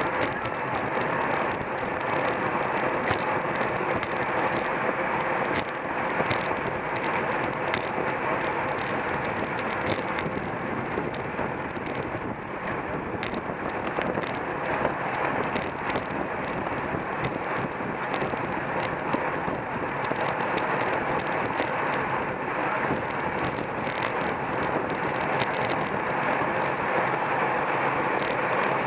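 Steady rushing noise of a road bicycle ridden at race speed: wind on the camera's microphone and road noise, with many small knocks throughout.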